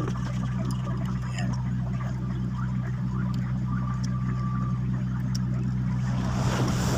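Steady low drone of an idling engine, with a few faint metallic clicks of a lug wrench on the front wheel nuts as they are tightened. A short rustling noise comes near the end.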